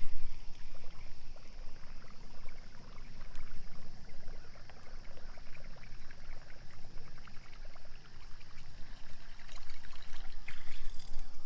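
Water splashing and trickling, with many small quick clicks over a steady low rumble.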